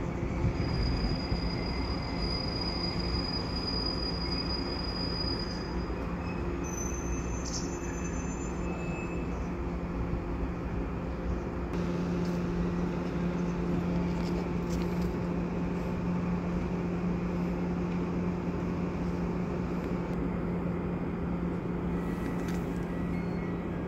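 JR West 103 series electric train on the Kakogawa Line, running with a steady low hum and rumble. A thin high squeal is heard in the first five seconds or so.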